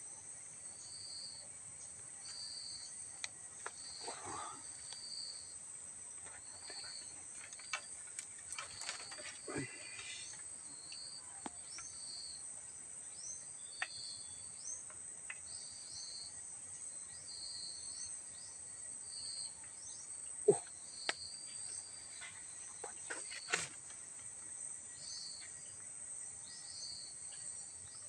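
Insects calling in a steady high drone, with short high chirps repeating about once a second. Scattered sharp clicks and knocks, the loudest about two-thirds of the way through.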